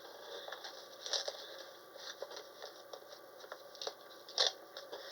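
Small collectible packaging being handled and opened by hand: faint crinkling rustles and scattered small clicks, with a louder rustle about four and a half seconds in.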